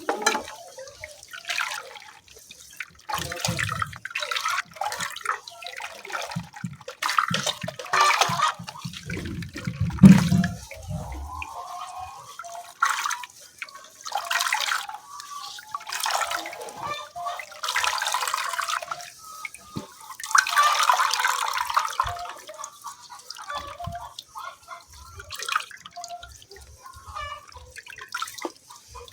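Liquid being poured and sloshed in irregular spurts, with a loud knock about ten seconds in.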